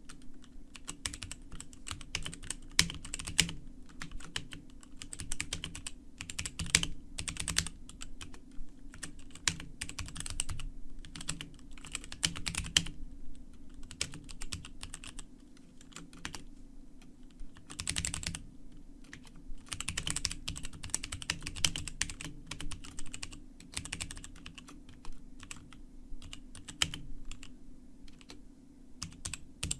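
Typing on a Motospeed K87S mechanical keyboard with Outemu Red linear switches: fast, irregular runs of key clicks and bottom-outs with short pauses. The keys sound loud because the board has a metal plate, an open skeleton design and no dampening rings.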